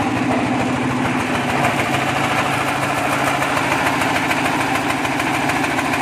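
The diesel engine of a one-bag concrete mixer running steadily with a fast, even beat.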